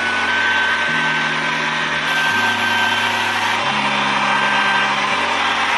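Babyliss hot air brush running: its fan motor gives a steady rush of air with a thin high whine as it dries hair.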